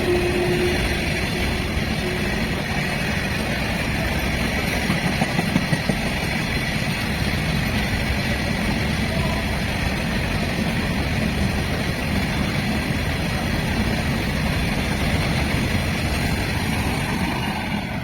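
A train rolling past at speed behind a WAG-9 electric locomotive: a steady, dense rumble of wheels on rail. The last note of the locomotive's horn fades out about a second in.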